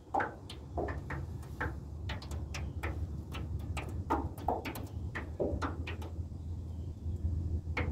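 Small waves lapping and slapping against the side of a metal boat: irregular light knocks, two or three a second, over a steady low rumble.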